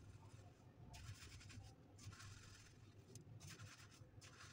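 Dry breadcrumbs rustling and scratching in three short passes as they are scooped and pressed over a battered eggplant on a plate. The sound is faint, over a low steady hum.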